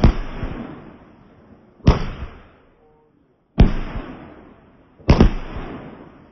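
Fireworks exploding: four loud bangs about one and a half seconds apart, each fading away over a second or so.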